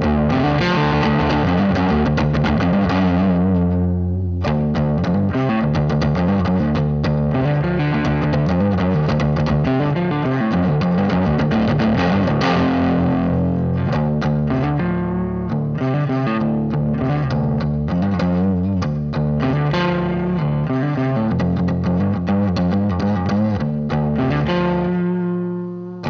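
Mensinger Birdy electric guitar, a Firebird-style solid body, played with heavy distortion through a Boss ME-90 multi-effects unit: one continuous passage of picked notes and chords, with a brief drop about four seconds in.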